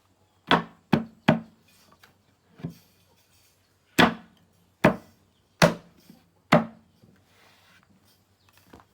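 Eight sharp blows struck on wood in an uneven rhythm, the fourth one fainter, each knock ringing briefly.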